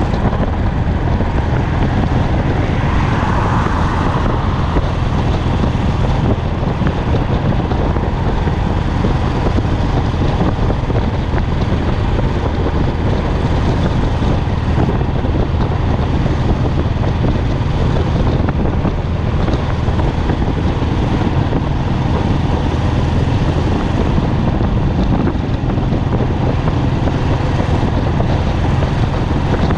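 Royal Enfield Classic's single-cylinder engine and exhaust running steadily at highway cruising speed, recorded on the bike, with wind noise over the microphone.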